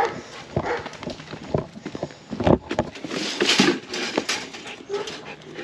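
Leather work boots walking on stone pavers: a run of irregular footsteps, knocks and scuffs.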